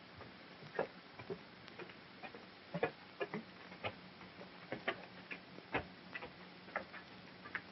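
Footsteps of several men climbing a wooden staircase: irregular knocks and scuffs of boots on wooden steps, with a faint steady hum underneath.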